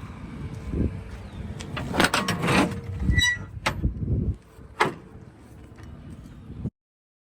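Metal clanking and banging, loudest about two seconds in, with a brief high squeal and a couple of sharp knocks after it; the sound cuts off abruptly near the end.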